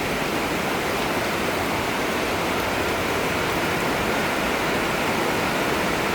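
Heavy tropical rain pouring down, a steady, unbroken rush of noise.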